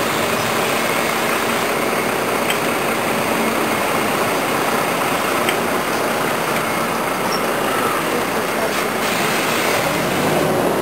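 Motor traffic and the tour bus's own engine, heard from its open upper deck: a steady wash of engine and road noise.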